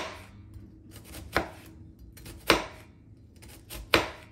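Chef's knife cutting down through half a red onion onto a plastic cutting board: four separate cuts, each ending in a sharp knock on the board, roughly a second apart.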